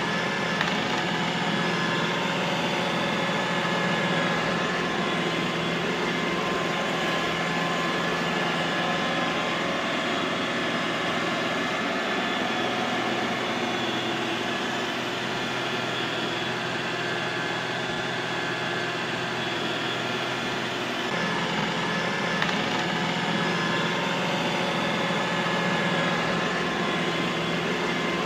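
Robot vacuum cleaner running: a steady whirring motor noise with a few constant whining tones. Its low hum weakens about twelve seconds in and comes back strongly some nine seconds later.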